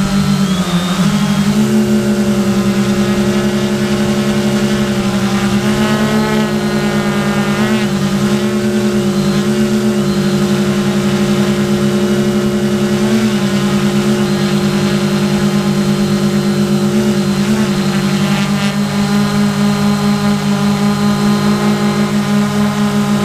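Quadcopter's electric motors and propellers running with a steady, loud drone: several close pitches stacked together that waver up and down slightly now and then as the motors adjust speed.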